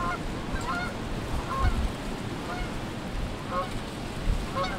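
A flock of wild geese honking overhead, many short calls overlapping at irregular intervals. Two low thuds come about a second and a half in and near the end.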